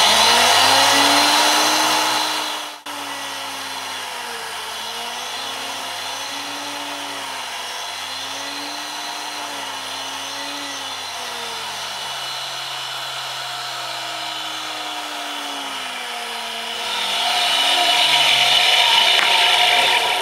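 Tool and cutter grinder's roughing cup wheel grinding a flat on a carbide rod blank for a D-bit. The grinding noise is loudest for the first couple of seconds and again for the last few seconds, with a steadier running hum in between whose pitch slowly rises and falls over and over.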